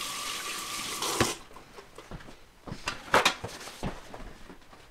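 Paper rustling for about a second, then a few scattered knocks and clacks as meat trim is handled and set down, the loudest about three seconds in.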